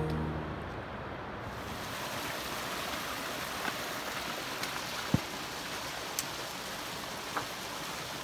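Creek water rushing and cascading over rocks, a steady rush, with a few short sharp taps, the loudest a little past the middle.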